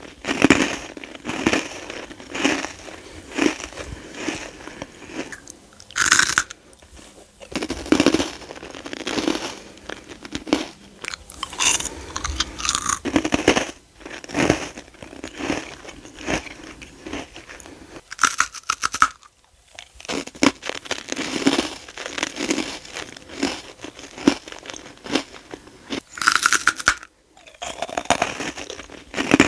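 Close-miked crunching and chewing of freeze-dried candy: brittle, airy pieces crackling apart in repeated irregular bites, with a few short pauses.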